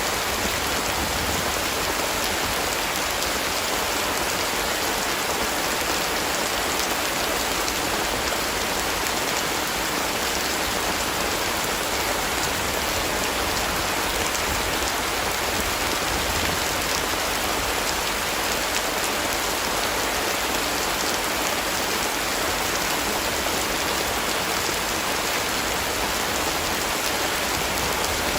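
Heavy rain falling steadily: an even hiss with fine patter of single drops.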